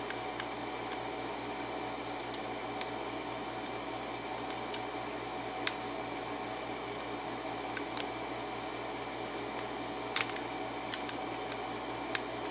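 Lock pick and tension wrench working the pins of a Schlage KIK 6-pin lock cylinder: small, sharp, irregular metallic clicks as the pins are probed and set, a few coming close together near the end, over a faint steady hum.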